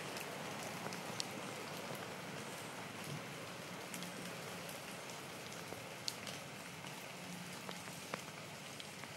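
Steady rain falling on leaves, with scattered sharp drips standing out from the even hiss.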